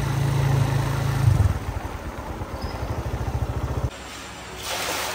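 An engine running with a steady low hum, then idling with an even pulsing beat from about a second and a half in, which cuts off abruptly near four seconds; a short hiss follows near the end.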